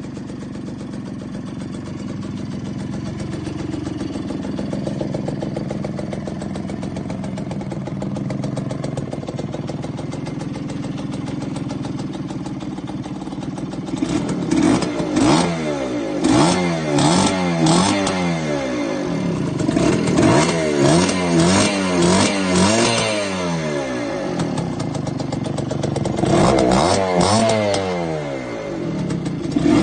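1977 Suzuki K50 moped's 49 cc two-stroke single-cylinder engine running at a steady idle, then revved again and again from about halfway on, its pitch rising and falling with each blip of the throttle.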